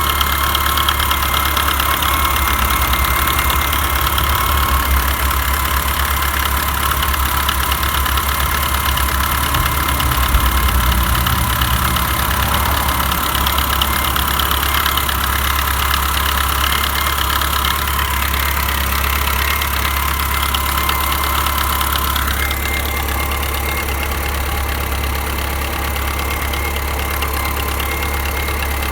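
VAZ-2107's inline four-cylinder engine idling steadily with an extraneous noise that the owner cannot identify. Partway through, a higher-pitched tone in the sound fades out and the sound gets slightly quieter.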